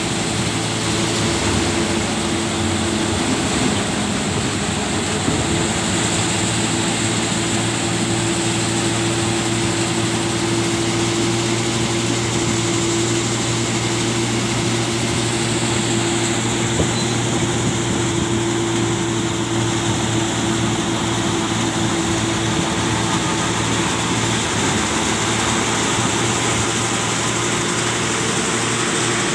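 A machine's engine running steadily at constant speed, a continuous hum without changes.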